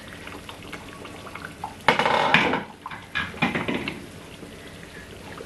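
Pot-and-utensil clatter as a pot of oily tomato sauce is uncovered and stirred with a spoon: a loud clatter about two seconds in and a few sharp knocks a second later, over the faint sputter of the sauce bubbling.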